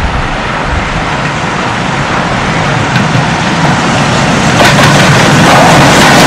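Steam locomotive hauling a passenger train as it approaches and passes close by, its noise growing steadily louder to a peak over the last second or two.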